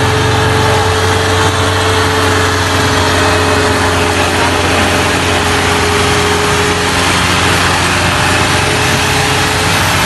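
Tractor diesel engines running steadily, a constant hum under a loud, even rumble with no let-up.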